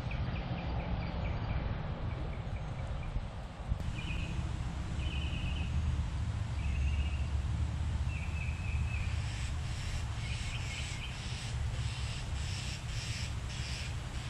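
Gusty wind buffeting the microphone with a steady low rumble, with birds calling over it: short repeated notes near the start, then several harsh calls from about four to nine seconds in.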